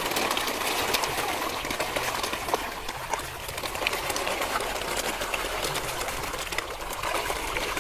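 Water splashing and slurping from a crowd of koi packed together at the surface to feed: a steady churning wash dotted with many small splashes and clicks.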